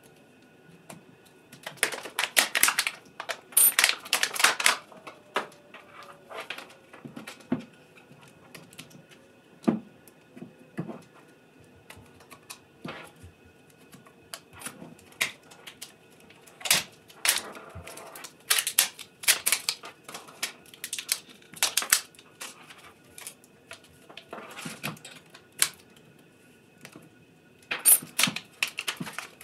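Clear plastic wrap crackling and tearing as it is peeled off a lithium-ion battery pack to open it, in irregular crinkly bursts with quieter handling between.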